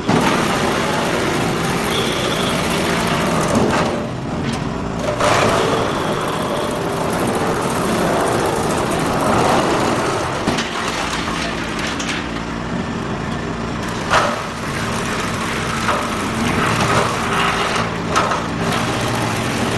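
Drum wood chipper running, a steady machine hum under a rough, noisy chipping sound that surges louder at irregular moments.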